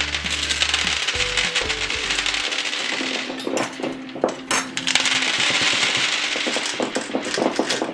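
Small hard candies rattling and clinking as a hand digs through them in a toy ice cream cup: a dense rattle that thins to separate clicks in the middle and thickens again afterwards. Background music plays under it.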